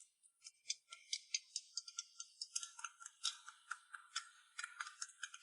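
Faint, quick high-pitched clicking and ticking, sparse at first and growing denser about halfway through.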